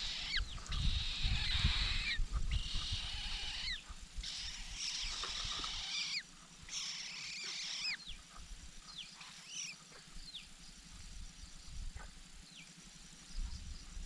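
Red-billed blue magpie nestlings begging at the nest with raspy hissing calls in bouts of a second or so, mixed with short downward-sliding chirps. After about 8 s only the scattered chirps go on. A low rumble sits under the first half.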